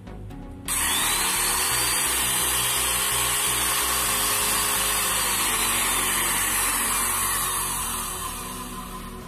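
Old metal-bodied corded electric drill switched on about a second in, its motor whining up to full speed and running steadily with the chuck spinning free, then let off near the end and winding down.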